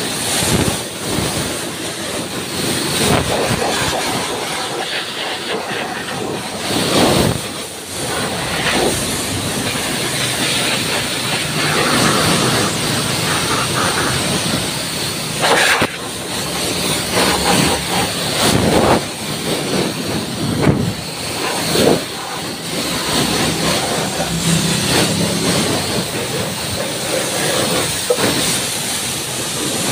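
Pressure-washer jet spraying water onto a motorcycle's rear wheel, shock absorber and underside: a loud, steady hiss of spray that swells and dips as the jet sweeps across the parts.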